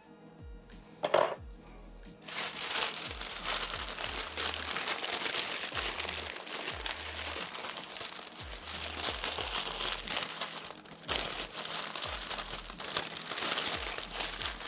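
Parchment paper crinkling and crumpling as it is folded and wrapped around a roasted whole cauliflower, pausing briefly near the end. A short sharp sound comes about a second in, and background music with a steady repeating bass beat runs underneath.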